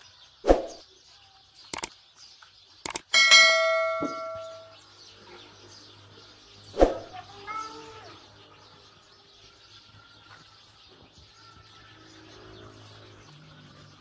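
Several sharp slaps of roti dough being patted between the palms, and about three seconds in a steel utensil is knocked and rings for over a second. Faint bird chirps in the background.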